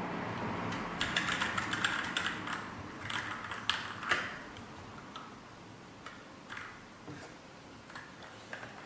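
Keystrokes on a TMKB T63 mechanical keyboard: a quick run of clicks about a second in, then slower, scattered taps toward the end.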